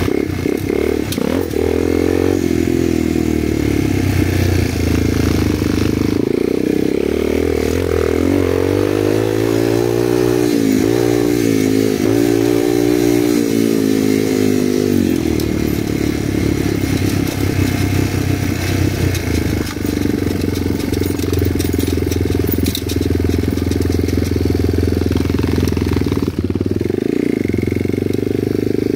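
Motorcycle engine running steadily, its pitch falling and rising several times between about eight and fifteen seconds in as the speed changes.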